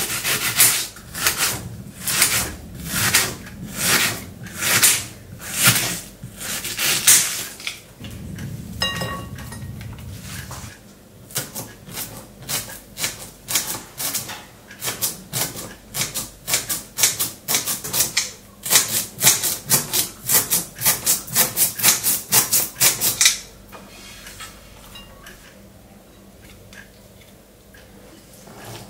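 Kitchen knife chopping vegetables on a cutting board, in even strokes of about two a second. A quick run of cuts comes about two-thirds through, then the chopping stops.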